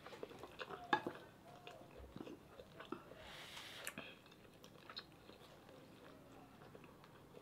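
Faint chewing of braised pork and rice, with scattered light clicks of a spoon and fork against ceramic bowls.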